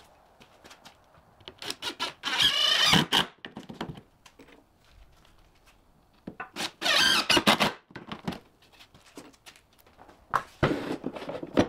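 Power drill driving screws into a plywood platform: three runs of about a second each with a wavering whine, quiet taps and handling between.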